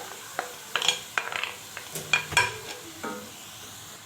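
Seafood mix going into a pan of sautéed onion and peppers, frying with a light sizzle while a spoon scrapes and clicks against the pan at an uneven pace as it is stirred.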